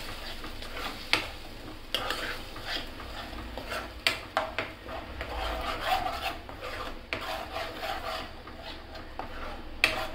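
Steel ladle stirring and scraping a thick red curry paste mixed with coconut milk around a non-stick kadai, with a few sharp clinks of the ladle against the pan.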